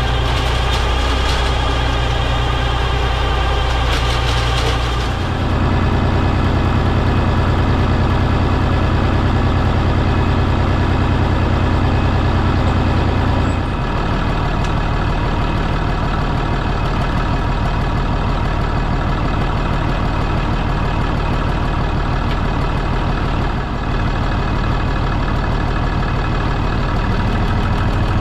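A Massey Ferguson 35 tractor engine running steadily while powering a hydraulic side-arm hedge trimmer. For the first few seconds the trimmer's cutter bar clatters through hedge twigs; the engine note changes about five seconds in and again around halfway.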